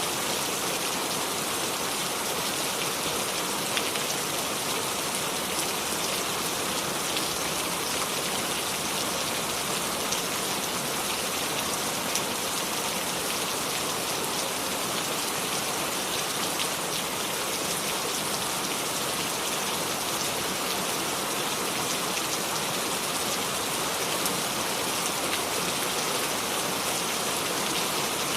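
Steady rain falling without thunder, with a constant hiss and scattered individual drops ticking on surfaces.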